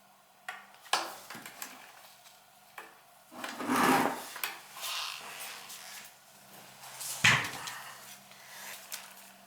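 Metal burner parts and hand tools handled while screws are loosened on an oil burner: scattered clicks and taps, a longer scraping rub about four seconds in, and a sharp click about seven seconds in, over a faint steady hum.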